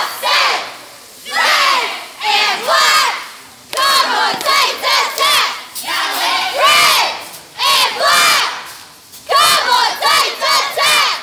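A cheerleading squad of girls shouting a cheer in unison, in short rhythmic chanted phrases with brief pauses between them.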